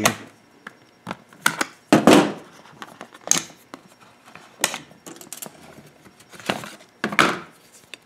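Side cutters snipping the straps that hold a U-lock to its cardboard packaging, with several sharp snaps, knocks and cardboard rustling as the lock is worked free.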